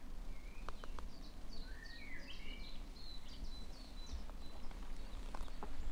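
Small songbirds singing: a quick run of short, high, falling chirps, over a steady low rumble of background noise, with a few faint clicks.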